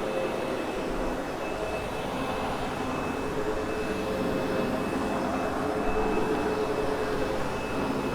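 Sebo X8 upright vacuum running steadily over loop carpet: a continuous motor rush with a steady high whine, getting a little louder about six seconds in.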